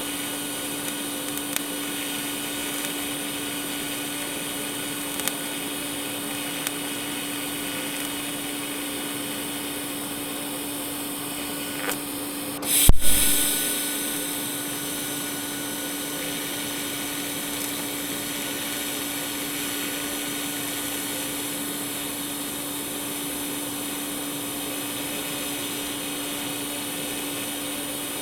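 Arc welding along a V'd-out crack in a steel truck frame rail: a steady hiss over a constant hum, with a few small ticks and one loud, sudden crack about 13 seconds in.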